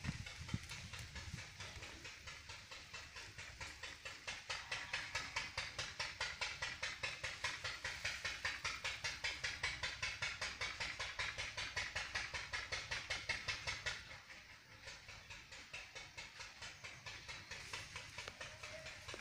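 A steady, rhythmic pulsing hiss of several beats a second, weaker in the last third.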